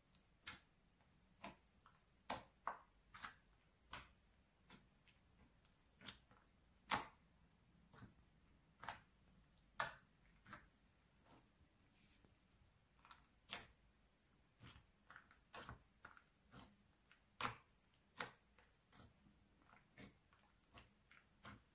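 White slime being pressed and folded by hand, giving small irregular clicks and pops of trapped air, about one or two a second, with quiet between them.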